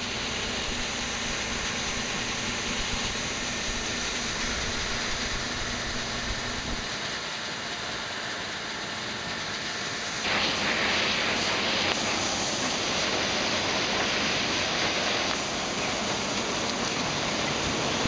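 Combine harvester running while harvesting corn, heard from on board the machine as a steady loud mechanical noise; the noise turns harsher about ten seconds in.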